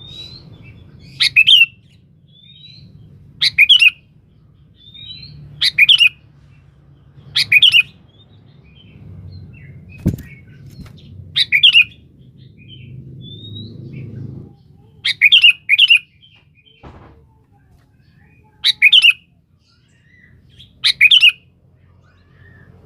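Sooty-headed bulbul singing in full voice, calling to a rival: loud, short, sharp phrases repeated about every two seconds, with soft chirps between them. A faint low rumble runs underneath, and there is a single thump about ten seconds in.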